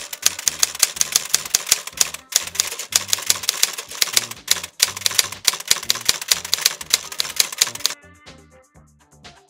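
Typewriter typing sound effect: rapid key clicks over background music with a bass line. The clicks stop about eight seconds in, leaving the music.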